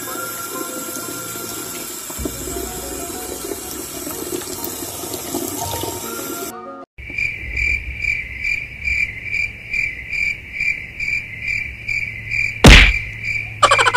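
A tap running, its thin stream of water splashing into a mug, under background music. Then, after a sudden cut, a high chirp repeats about two or three times a second, broken by one loud thump near the end.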